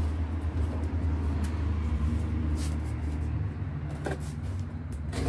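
Steady low rumble of motor traffic on a nearby main road, slowly fading, with a few faint clicks and scrapes of a knife cutting open a cardboard parcel.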